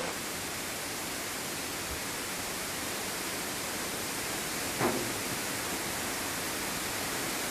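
Steady rush of water as a canal lock chamber fills, with one brief sharp sound about five seconds in.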